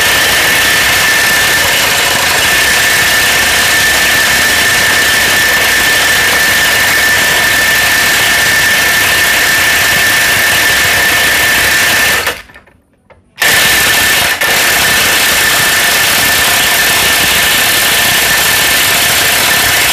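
A DCK KPB22C corded electric impact wrench hammering without a break on a bolt tightened to about 900 Nm, with a steady high whine over the hammering. It runs for about twelve seconds, stops for about a second, then hammers again. The bolt does not come loose.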